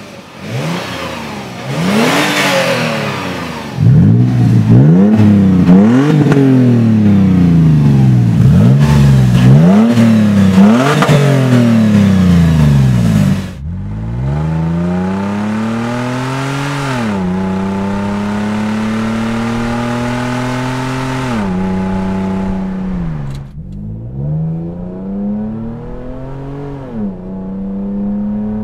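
Toyota 4Runner's 4.0-litre V6 revved hard through its exhaust, again and again. Quick revs rising and falling come first with the stock exhaust. After a cut about halfway through, it runs through the Carven stainless dump-exit cat-back with its straight-through canister muffler, with revs held steady at high rpm for several seconds and dropping back between them. In the last five seconds or so it is heard from inside the cabin, duller.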